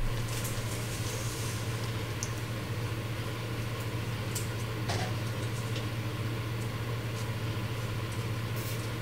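Steady low machine hum, with a few faint clicks and rustles of hands handling parts and wiring in the trunk.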